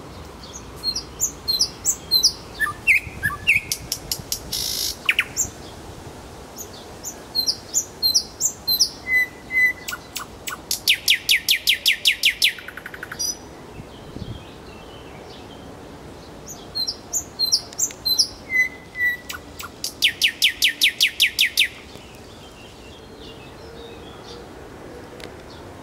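A thrush nightingale singing: three song phrases of varied whistles and clicks separated by pauses, each ending in a fast run of repeated notes, about seven a second.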